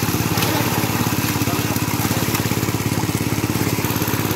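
A small engine running steadily with an even, rapid chugging beat.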